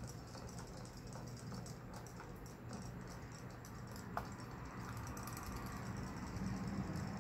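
Battery-powered robot fish toys swimming in a plastic bowl of water: a faint steady hum with light clicking and patter. A single sharper click about four seconds in, as a cat paws at one of the fish in the water.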